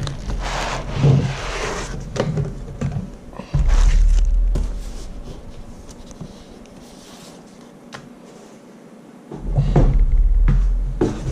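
Unboxing noise: cardboard, foam and plastic packaging rustling and being handled, with clicks and two stretches of heavy low thudding and rumbling, one a few seconds in and one near the end.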